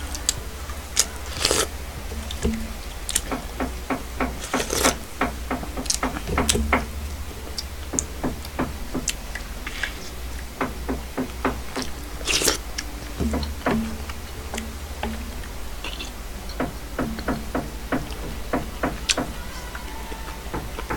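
Close-miked eating of beef and radish soup: spoon and chopsticks clicking against the bowl, with slurping and chewing in irregular sharp clicks, over a steady low hum.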